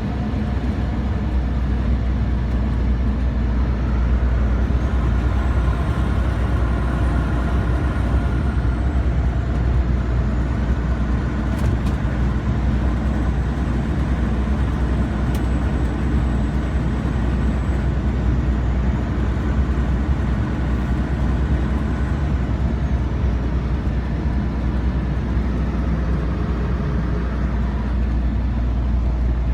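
Renault Magnum 430's 12-litre Mack E7 inline-six diesel running steadily under way, with a high turbo whistle that rises about five seconds in, holds through the middle, and fades away near the end. Two sharp clicks about halfway through.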